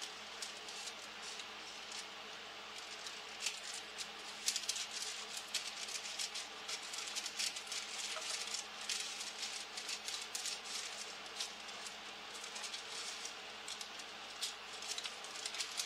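Parchment paper crackling and rustling as it is handled and cut into a round for an air fryer basket, a dense run of small irregular crackles.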